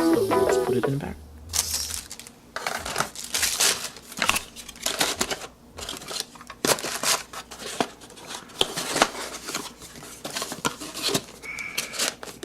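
Music ends about a second and a half in. After it come irregular handling sounds: light clicks, taps and rustling as the camcorder and its packaging are handled.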